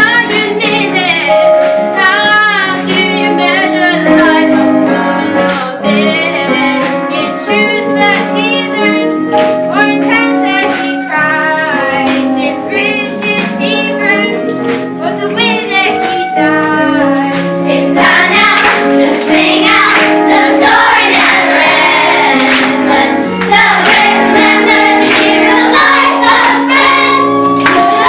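A group of children singing a song together with musical accompaniment; the singing grows fuller and louder about two-thirds of the way through.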